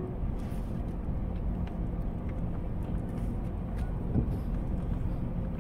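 Inside a car driving slowly over a gravel car park: steady low engine and tyre rumble, with a few faint ticks.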